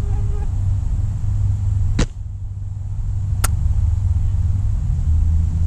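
Silverback SRS A2 spring-powered bolt-action airsoft sniper rifle firing a shot: one sharp snap about two seconds in, then a shorter click about a second and a half later, over a steady low rumble.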